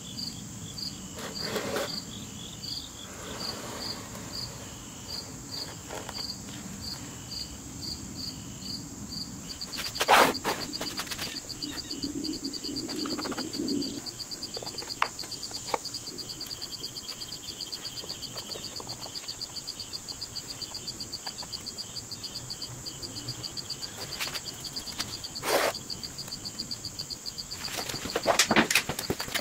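Crickets chirping steadily, about two chirps a second at first, then a fast continuous trill from about ten seconds in. A few sharp wooden knocks as the halves of a wooden sand-casting mold box are handled and set together, the loudest about ten seconds in and several more near the end.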